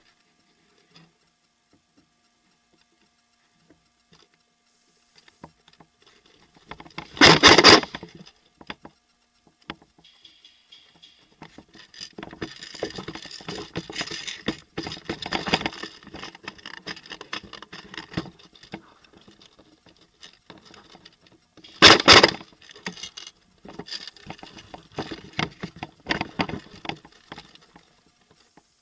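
Airsoft gun fire: two loud bursts of rapid shots, each about a second long and some fifteen seconds apart, with longer stretches of softer rapid crackling between and after them.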